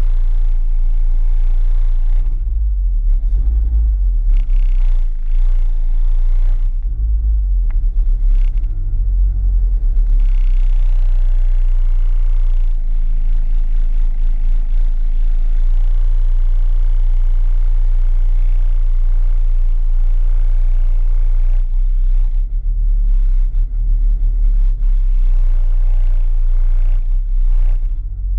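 Supercharged 1.6-litre four-cylinder of a MINI Cooper S idling with the car standing still: a steady low rumble that grows uneven for stretches early on and again near the end.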